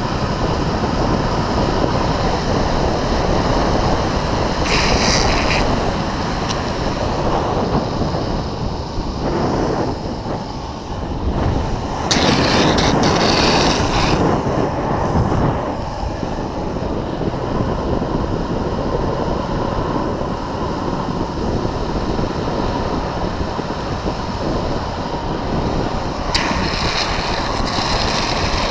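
Wind rushing over a helmet camera's microphone at downhill longboarding speed, over the steady roll of urethane longboard wheels on asphalt. Brighter, hissier passages stand out about five seconds in, for a couple of seconds around the middle, and near the end.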